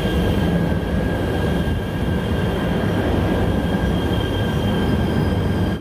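Shinkansen bullet train pulling into a station and slowing past the platform: a loud, dense rumble of wheels and cars with steady high squealing tones that sink slightly in pitch as it decelerates. The sound cuts off suddenly near the end.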